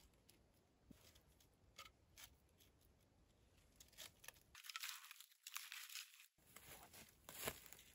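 Faint crackling and rustling with scattered light clicks of wooden logs and bark being handled and set down, busier and louder in the second half.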